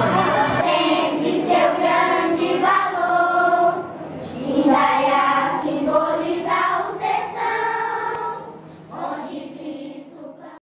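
A group of voices singing a song in phrases, fading out over the last couple of seconds before cutting off.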